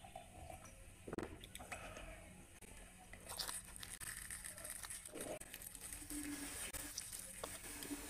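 A crisp deep-fried luchi (puffed puri) being torn apart by hand, crackling and tearing from about three seconds in. A few soft knocks come before it.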